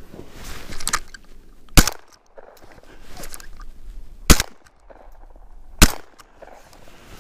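Three shotgun shots fired by the wearer of the camera at flying pheasants. The second comes about two and a half seconds after the first, and the third about a second and a half after that.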